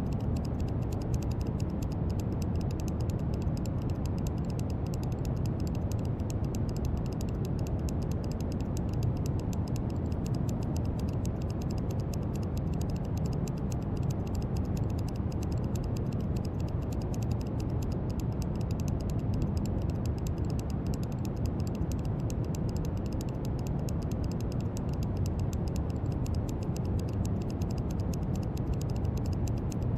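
Steady brown noise: an even, deep rumbling hiss, heaviest in the bass, with no change in level.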